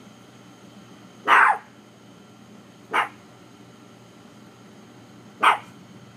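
A dog barking three times, a couple of seconds apart, the first bark the longest, over a steady faint hum.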